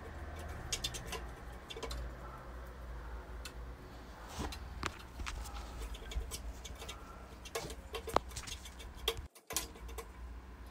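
Spoon scraping and tapping against a frying pan while stirring kottu roti: irregular light clicks and scrapes, a few a second, over a faint low hum.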